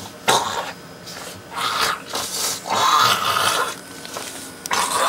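A person making rough, breathy coughing and throat-clearing noises in irregular bursts of about half a second to a second each.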